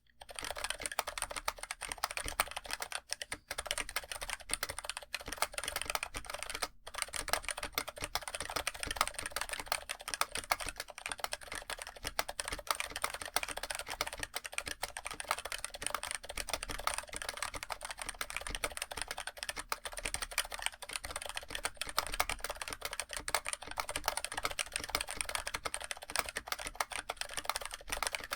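Fast continuous typing on a NovelKeys NK65 aluminium mechanical keyboard with TTC Bluish White tactile switches, whose bottom-out is muted rather than silent, giving a soft, dampened clack. The typing starts suddenly and pauses briefly about seven seconds in.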